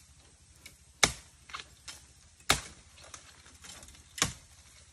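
Three sharp chops of a blade into bamboo, roughly a second and a half apart, with lighter taps and cracks between them.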